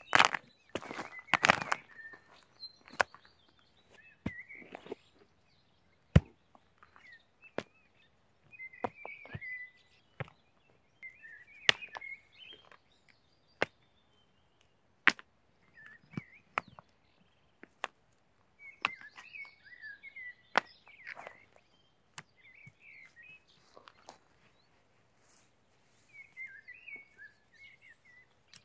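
Rough stones knocking and clacking against each other as they are dropped and set down one by one into a stone ring on dry ground, with a cluster of knocks near the start and single knocks every second or two after. Birds chirp in short bursts between the knocks.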